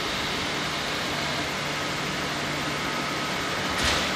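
Madrid Metro 9000-series train standing at the platform, its ventilation giving a steady hum and hiss. A thin high steady tone joins partway through, and near the end the sliding passenger doors close with a short loud rush of air.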